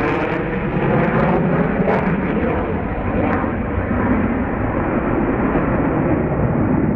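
Jet noise of a Su-35S fighter's two Saturn AL-41F1S turbofan engines in flight, loud and steady, with a few sharp crackles in the first two seconds.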